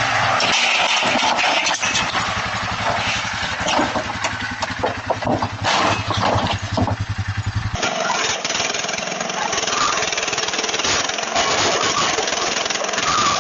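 Small petrol engine, a lawn mower's, running with a fast, even pulse; about eight seconds in it cuts off abruptly and a steady rushing noise takes over.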